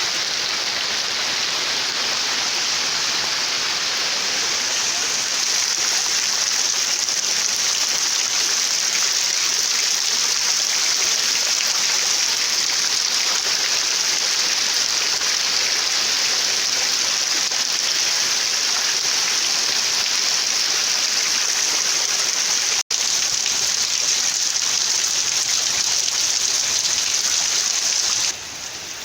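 Steady heavy rain pouring down, a dense even hiss. It cuts out for an instant about three-quarters of the way through and turns quieter just before the end.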